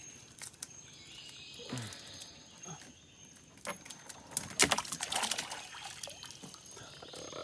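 Water splashing and trickling, loudest in a cluster of splashes about four and a half to five and a half seconds in, over a steady high drone of insects.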